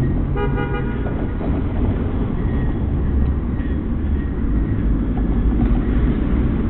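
A car horn honks once, briefly, about half a second in, over a steady low rumble of traffic and road noise.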